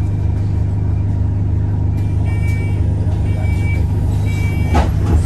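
Bus engine idling at a stop, heard from inside the passenger cabin as a steady low hum. A short high warning beep repeats about once a second from about two seconds in, typical of the door alarm, and a few sharp knocks come near the end.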